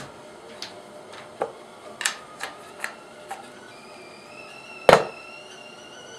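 A few light clicks and taps, then one loud clunk about five seconds in as an Aeropress is set down on top of a drinking glass. About four seconds in, soft music with a high, gently bending tone starts playing underneath.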